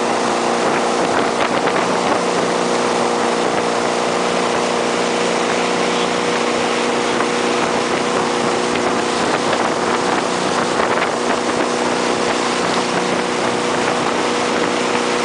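Tow boat's engine running steadily at speed, a constant hum under the rush of churning water from the boat's wake and wind on the microphone.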